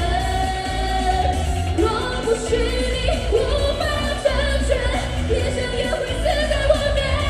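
Live pop song: female voices singing a melody over loud amplified backing music with a heavy, steady bass.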